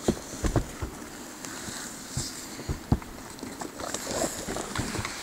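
Irregular soft thumps and scuffs of close-up movement in snow, as a pug scrambles about and feet shift around the microphone, with a few sharper knocks, the loudest about three seconds in.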